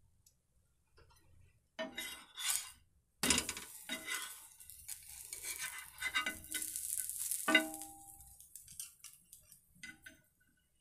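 Metal utensils clattering, clinking and scraping against a pan over a sizzling hiss, starting about two seconds in, with a short ringing clink about three-quarters of the way through; it thins to a few light clicks near the end.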